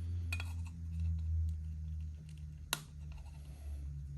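Small clicks of plastic wiring connectors being handled and pushed together, with one sharp snap about two and a half seconds in, over a steady low hum.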